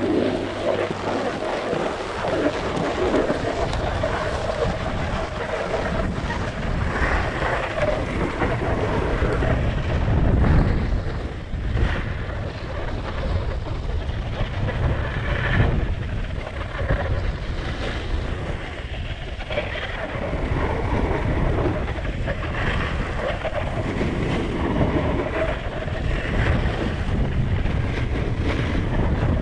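Wind rushing over a GoPro action camera's microphone while snowboarding at speed. Under it, the board's edge scrapes and hisses over packed, groomed snow, swelling and easing every few seconds as it turns.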